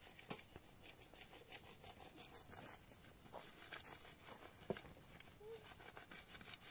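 Near silence: faint background hiss with a few light clicks and one sharper tap about two-thirds of the way through.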